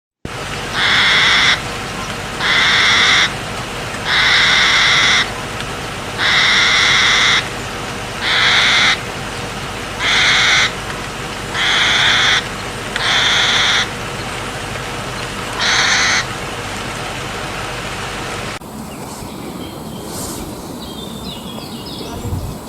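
An animal's harsh call repeated nine times, each call lasting about a second, roughly every two seconds. The calls stop, and about three-quarters of the way through the sound changes to quieter, mixed background sounds.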